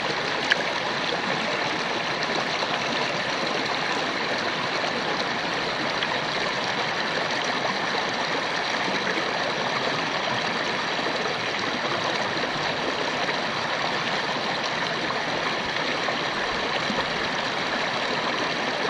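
River water running, a steady even rush of flowing water, with one brief click about half a second in.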